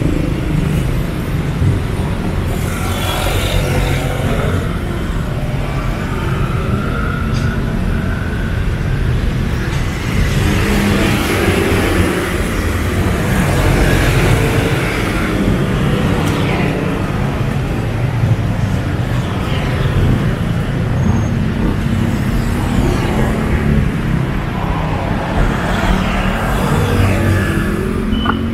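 Road traffic on a city street: a steady engine rumble, with several vehicles passing by in turn.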